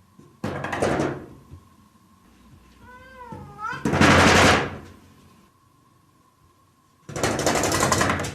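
A cat gives a short meow with a wavering pitch about three seconds in, between three loud bursts of hissy noise; the loudest burst follows right after the meow.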